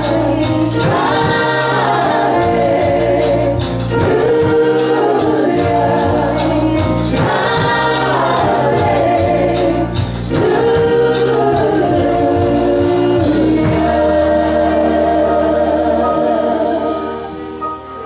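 A church worship team of men and women sings a contemporary worship song, backed by a band with a drum kit and frequent cymbal strikes. About fourteen seconds in, the voices hold a long final note over a sustained chord, which begins to fade near the end.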